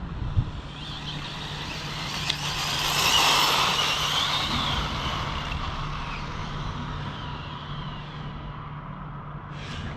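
A vehicle passing by: its noise builds, peaks about three seconds in with a high whine that rises and falls, then fades away slowly over a steady low hum.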